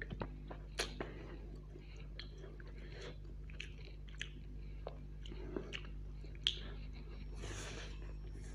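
Close-miked mouth sounds of eating chow mein noodles: wet chewing with many sharp mouth clicks, and a longer noodle slurp near the end.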